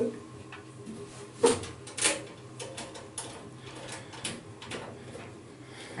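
Sheet-metal side panel of a desktop PC case being slid shut and pressed into place, two sharp knocks about one and a half and two seconds in, then lighter clicks.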